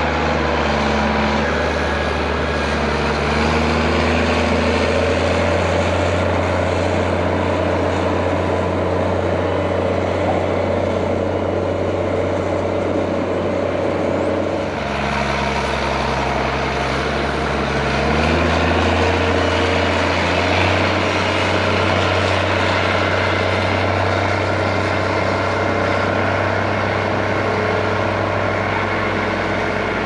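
Big diesel tractor engines working on a corn silage pile, pushing silage up with a blade and packing it. The nearest engine's note drops about halfway through and picks up again a few seconds later.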